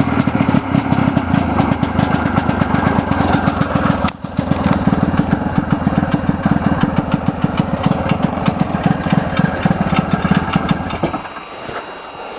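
1979 Ski-Doo Blizzard 5500 snowmobile's two-stroke engine running with a fast, even putter, after a pull start on 50:1 premix. It dips for a moment about four seconds in, and its sound drops away near the end.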